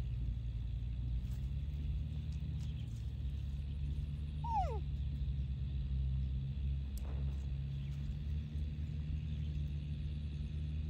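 A steady low rumble, with one short, falling animal whine about four and a half seconds in.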